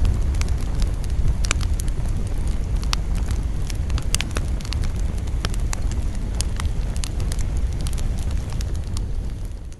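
Campfire burning, with frequent sharp crackles and pops over a steady low rush; the sound fades out at the very end.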